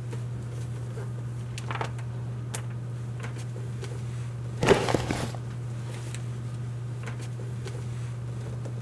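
Books being handled on a wooden library shelf: faint taps and rustles, with a louder knock and scrape about halfway through, over a steady low hum.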